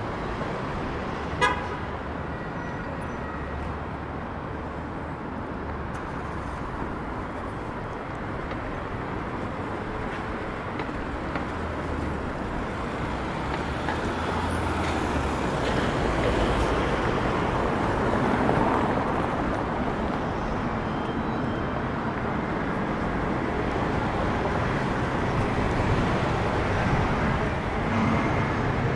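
City street traffic: a steady wash of passing cars that grows louder about halfway through, with one short sharp click about a second and a half in.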